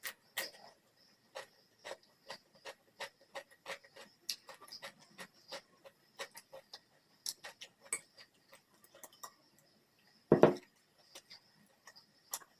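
Close-miked eating: wet mouth clicks and smacks of chewing, about two or three a second. About ten seconds in there is one much louder thump.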